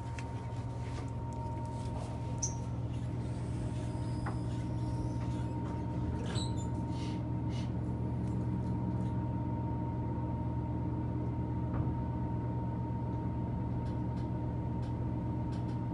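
Delta elevator car running, heard from inside the cab: a steady low hum with a thin, constant high whine, and a few faint clicks and rattles.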